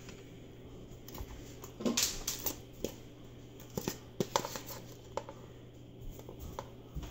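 Scattered light clicks and scrapes of a utensil against dishes as chopped onion is added to a stainless saucepan, over a faint steady low hum.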